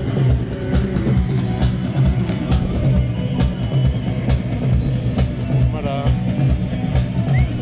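Live rock band music with a steady drum beat.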